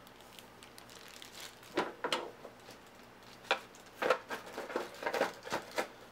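Small wooden game pieces clicking and knocking as they are handled and put away: a scatter of short, sharp clicks starting a couple of seconds in and coming thickest near the end.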